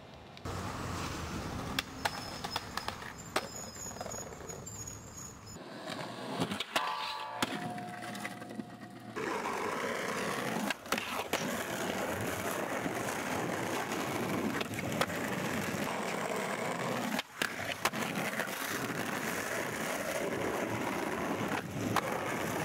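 Skateboard wheels rolling over rough concrete, with the sharp clacks of tail pops, landings and board slaps heard many times.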